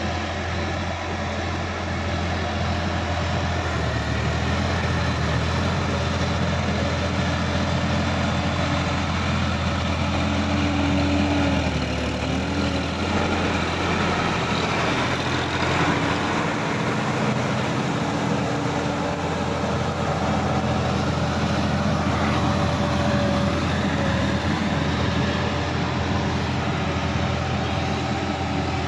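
Sonalika DI-50 RX tractor's diesel engine running steadily as it works through a flooded, muddy paddy field. It gets a little louder midway as the tractor passes close by.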